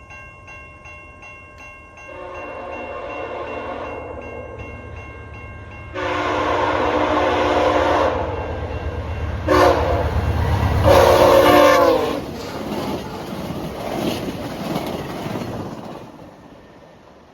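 VIA Rail passenger train's air horn sounding for a level crossing in the long-long-short-long pattern, over the steady ringing of the crossing bells. The train rushes past with a low rumble, the last horn blast drops in pitch as it goes by, and the rumble fades away.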